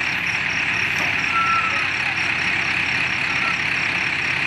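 Diesel engines of hydra mobile cranes running steadily while the cranes hold a shipping container, with a high-pitched warning beeper repeating about three times a second.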